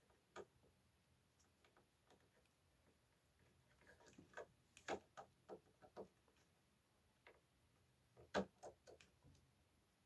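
Faint, scattered plastic clicks and taps as hands and a screwdriver work on the air conditioner's louver swing-motor housing, with a run of clicks in the middle and a sharper cluster near the end.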